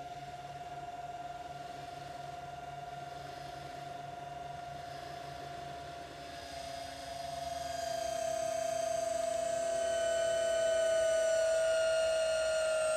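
Electric engagement motor of an Enduro Premium caravan mover whining steadily as it swings the drive roller against the caravan tyre. The whine grows louder after about seven seconds, its pitch sinking slightly.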